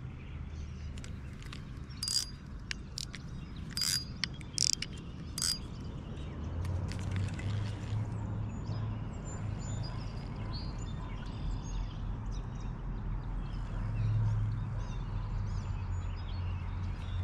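A few sharp clicks and rattles from a spinning rod and reel being handled, bunched in the first half. They are followed by a steady low rumble, with faint bird chirps above it.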